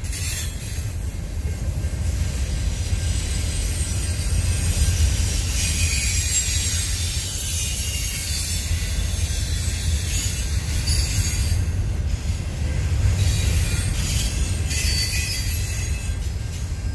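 Freight train cars rolling past: a steady low rumble with high-pitched squealing from the wheels on the rails.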